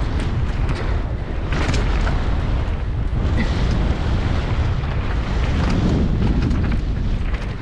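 Downhill mountain bike riding fast over rough, brake-bumped dirt, heard from an action camera: heavy wind rumble on the microphone with tyre noise and repeated clattering knocks from the bike over the bumps.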